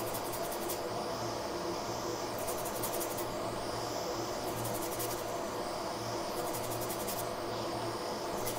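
Steady hiss of a hot air rework station blowing to heat the CPU and soften its glue. A faint, rapid chirring comes and goes over it about every two seconds.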